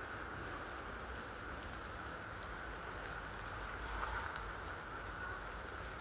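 Steady outdoor background noise: an even hiss with a low rumble underneath and a few faint ticks, the loudest about two-thirds of the way in.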